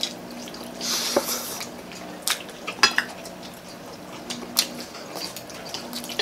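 People eating at a table: chewing and mouth sounds with forks and spoons clicking against plates. A brief noisy burst comes about a second in, and a quick rattle of clicks near three seconds.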